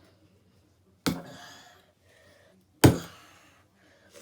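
Two sharp hits on an old Samsung tablet, about two seconds apart, each dying away quickly.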